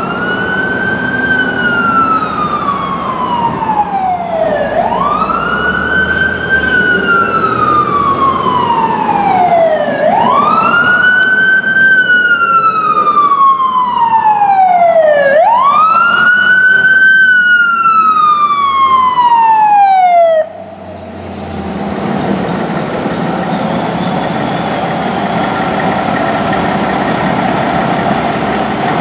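Fire engine siren wailing through four slow cycles, each rising quickly and falling slowly, then cut off abruptly about twenty seconds in. The truck's engine keeps running steadily after that.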